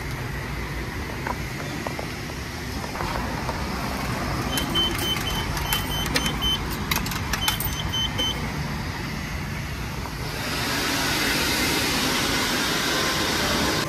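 Self-serve car wash pay station beeping as it is paid and set: a string of short high beeps with clicks in the middle, over a steady low hum of the bay's machinery. About ten seconds in, a steady hiss of water spray starts.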